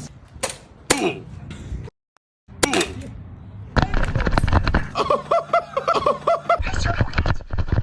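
Airsoft guns firing: a few single pops, then a rapid run of cracks from about four seconds in, with a person's voice over it.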